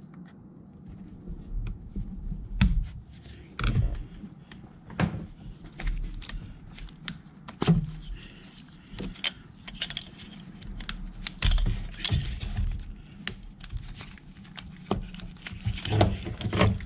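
Irregular clicks, knocks and rattles of plastic ignition-coil connectors and wiring harness being handled and worked loose with gloved hands.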